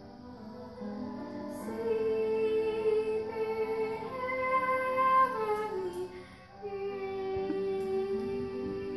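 A female solo voice singing long held notes to piano accompaniment. About two-thirds of the way through, the voice glides down to a lower note and holds it.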